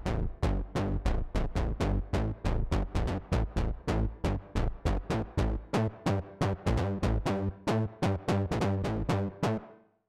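Martinic AX73 software synthesizer, an emulation of the 1986 Akai AX73 analog synth, playing its 'Drunken Bass' monophonic bass preset: a dark, hard bass line of short, punchy notes at about four a second, stopping just before the end.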